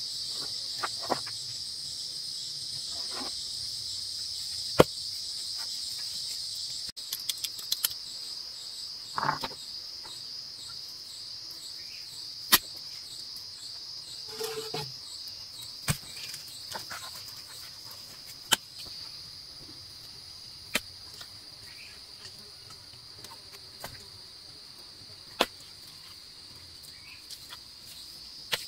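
Steady, high-pitched insect chorus, with sharp single knocks every few seconds, as of work on wood or stone.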